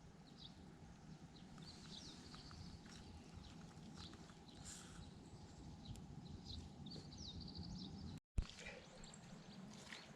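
Faint small birds chirping in short, repeated calls over a low steady outdoor rumble, with the sound cutting out briefly about eight seconds in.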